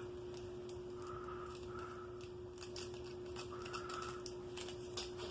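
Small MRE sweetener packet being torn open and handled: faint rustles and scattered light clicks over a steady hum.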